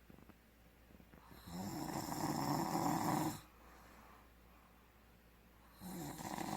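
Snoring: two long rattling snores, the first starting about a second and a half in and lasting about two seconds, the second beginning near the end.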